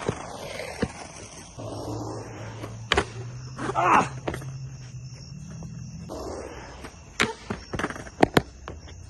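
Skateboard urethane wheels rolling on concrete, with sharp clacks and knocks of the board and shoes against the ramp. A short voice sound comes about four seconds in. Crickets chirp steadily in the background.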